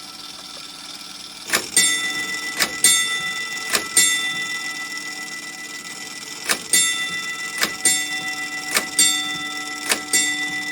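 Gamewell fire alarm gong and register sounding out box code 345: three strikes, a pause, then four strikes. Each strike is a sharp double hit that leaves a ringing tone hanging on between strikes.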